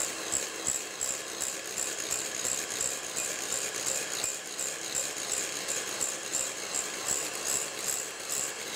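Hand-held electric mixer running steadily, its twin wire beaters whipping a cream cheese and whipped cream mixture in a glass bowl.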